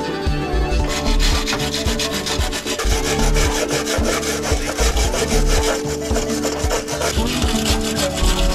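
Hand wire brush scrubbing surface rust off the steel of a car's engine bay in rapid back-and-forth strokes, starting about a second in, over background music.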